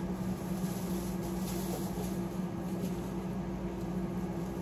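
A steady low hum of room machinery, with a few faint rustles of a plastic bag.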